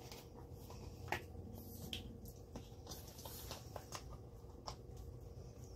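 Faint scattered clicks and light taps of small kitchen handling, over a low steady hum.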